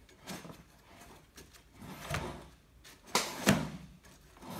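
Lawn mower blade and engine crankshaft being pushed round by a gloved hand, turning freely with a few short swishing and rubbing sounds, the loudest a little past halfway. The blade never stops or bounces back: the engine has zero compression.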